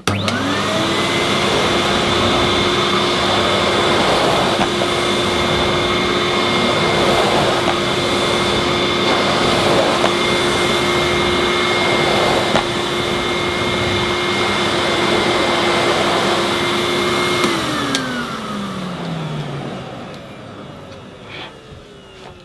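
Miele De Luxe S228i cylinder vacuum cleaner starting up with a quickly rising whine, then running steadily at full speed with its floor nozzle on plush-pile carpet. About 17 seconds in it is switched off, and the whine falls as the motor winds down.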